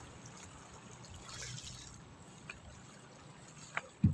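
Gentle sea water lapping and trickling against shore rocks, with a few faint clicks and a short low thump near the end.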